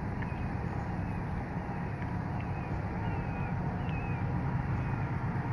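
Low steady rumble of a distant diesel freight locomotive, growing slightly louder toward the end, with a few short bird chirps over it.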